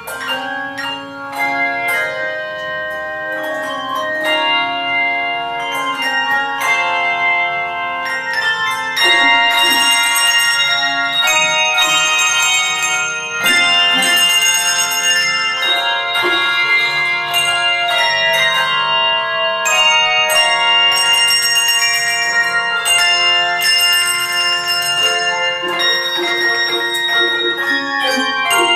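Handbell choir ringing a hymn arrangement, many handbells sounding together in ringing chords. The playing grows louder about nine seconds in and stays full.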